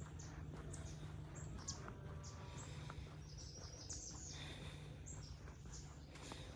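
Small birds chirping, short high calls scattered throughout, over a steady low background hum.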